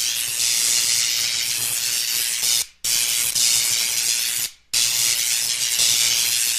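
Steady hissing noise, like a steam or spray sound effect, mostly high-pitched. It cuts out abruptly for a moment nearly three seconds in and again about four and a half seconds in, then resumes.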